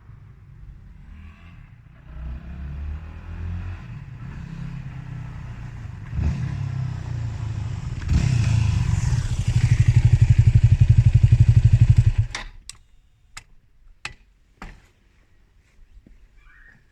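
Yamaha WR250X's stock 250cc single-cylinder four-stroke engine running, getting louder in steps from about two seconds in until it beats with a fast, even pulse, then cutting off suddenly about twelve seconds in. A few sharp clicks follow.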